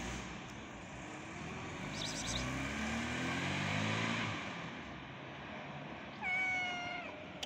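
A vehicle passes by with a rising engine drone, then a stray cat gives one flat, clear meow lasting about a second near the end.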